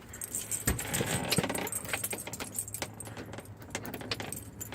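A bunch of house keys jangling in the hand, with many small scattered metallic clicks, as the keys are handled to unlock a door.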